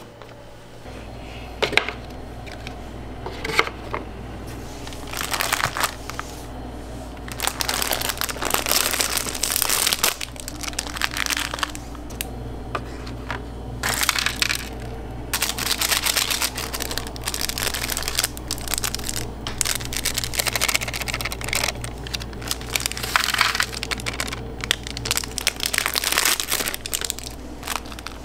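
Crinkling and rustling of instant-ramen packaging and a foil seasoning sachet, with sharp clicks and knocks as paper bowls and packets are handled, over a steady low hum.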